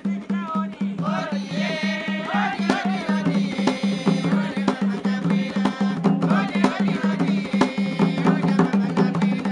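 Lively traditional dance music: a drum beating a quick, steady rhythm, with voices singing over it.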